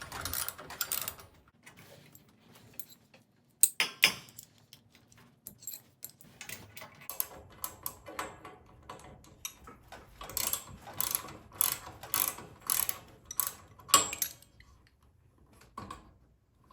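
Hand tools clicking and scraping on the metal winding cone of a garage door torsion spring as the cone is loosened, in irregular bursts with a run of sharp clicks about two a second near the end.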